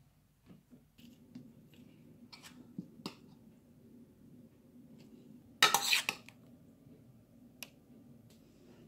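Light taps and clinks of a stainless steel bowl and dishes while vegetable filling is handled by hand, with one louder clatter lasting about half a second around six seconds in, over a faint steady hum.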